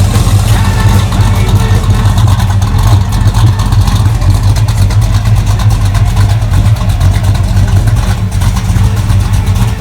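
Supercharged V8 engine of a 1969 Dodge Charger running steadily at idle, loud, with a fast, even pulsing beat.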